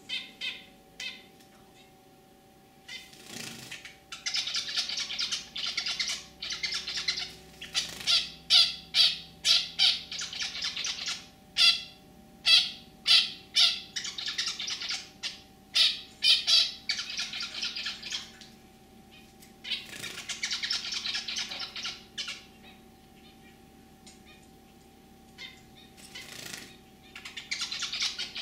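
Male zebra finch singing its throaty song: bouts of quick, buzzy, nasal notes and sharp chirps, repeated several times with pauses of a second or more between bouts.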